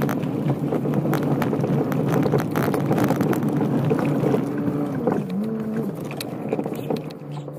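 Vehicle engine running while driving slowly over a rough dirt track, heard from inside the cab, with frequent knocks and rattles from the bumpy ground. The engine note drops about five seconds in as the vehicle slows.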